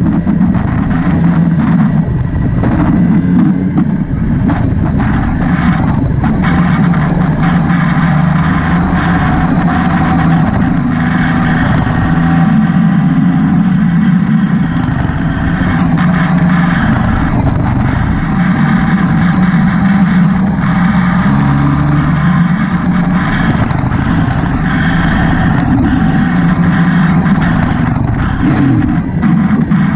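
Motorbike engine running under way, its pitch shifting up and down with the throttle.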